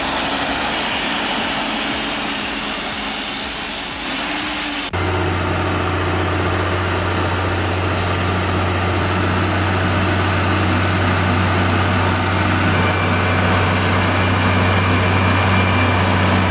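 Heavy logging truck's engine labouring under a full load. About five seconds in the sound changes abruptly to a steady, deep engine drone that slowly grows louder.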